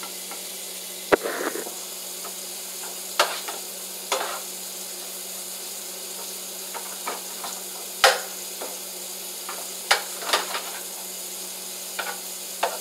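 Food sizzling steadily in a frying pan on the stove burner, with a spatula clacking against the pan now and then as it is stirred.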